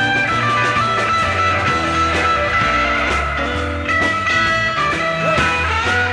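Live psychedelic blues band jamming: an electric guitar plays long lead notes that slide down in pitch, over a steady bass line and drums.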